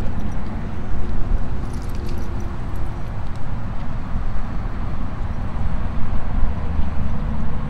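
Outdoor low rumble: wind buffeting the microphone through its furry windscreen, with road traffic in the distance, rising and falling unevenly.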